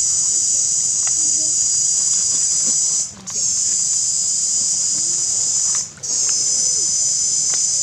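A loud, steady, high-pitched insect drone, typical of cicadas, that breaks off briefly twice. Underneath are faint scrapes and ticks of a cleaver working a fish on a wooden chopping board.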